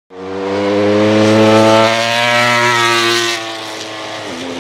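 Ducati MotoGP two-seater's V4 racing engine running hard at high revs with a strong, steady note, dropping sharply in pitch just after four seconds in.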